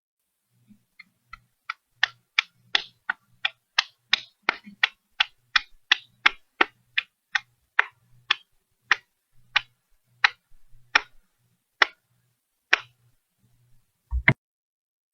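A rapid run of sharp slaps, about thirty in all. They start faint, come two to three a second, then slow and thin out. One heavier, deeper slap lands near the end.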